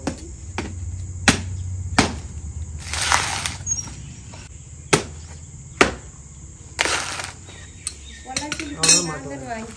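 Coconut being husked by hand: a long tool struck into the fibrous husk about six times with sharp, irregular knocks, and the husk pried and torn apart between strikes.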